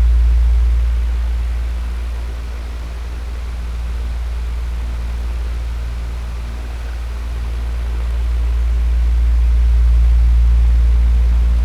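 Electric fan running steadily: a low hum under an even whooshing hiss, swelling and fading slowly in loudness.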